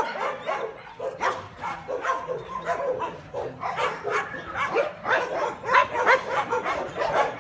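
Many kennelled dogs barking at once, short barks and yips overlapping one after another.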